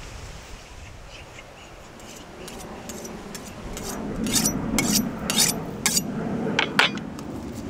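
A large knife being honed on a steel sharpening rod: a dozen or so quick metal-on-metal scraping strokes, faint at first and loudest from about four seconds in.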